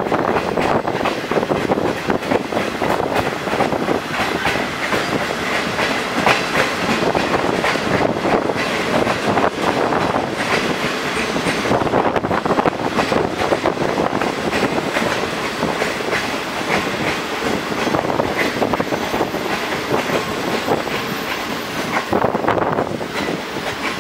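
Passenger train coaches rolling along the track, wheels clacking steadily over the rail joints, with running noise and air rushing in at an open carriage window.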